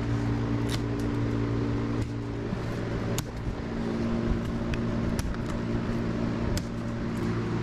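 Steady hum of a room fan and air conditioner running, with scattered sharp clicks and taps as a cardboard shipping box is opened.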